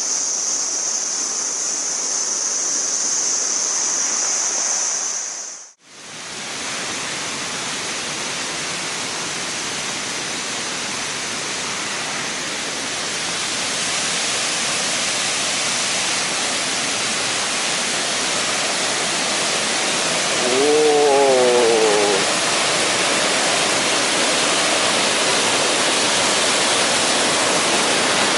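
Steady rushing roar of a large waterfall, with a sudden brief dropout about six seconds in. A short wavering pitched call rises over the roar about two-thirds of the way through.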